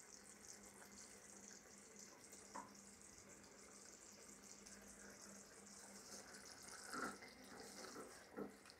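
Near silence with faint bubbling of a thick pineapple pickle simmering in a pan; near the end a wooden spatula stirs through it with a few soft scrapes.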